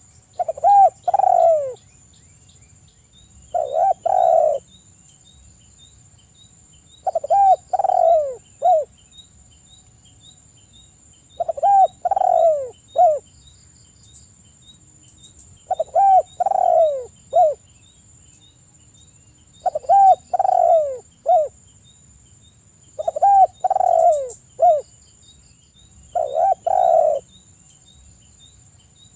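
Spotted dove (tekukur) cooing: a phrase of several falling coos, repeated eight times about every three to four seconds.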